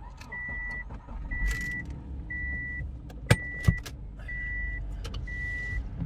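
A car's warning chime beeping six times, about once a second, each beep a short single high tone, over the low, steady running of a 2006 Subaru Forester's EJ25 engine just started. Two sharp clicks a little past halfway are the loudest sounds.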